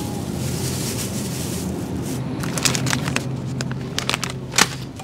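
Plastic grocery packaging crinkling and crackling as it is handled, a quick run of sharp crackles in the second half, the loudest near the end, over a steady low hum.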